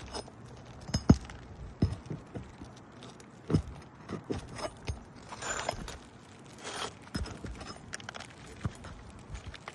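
Scattered knocks, clicks and short scrapes of hand tools working nails out from under roof shingles and lifting the shingles, the loudest knock about a second in.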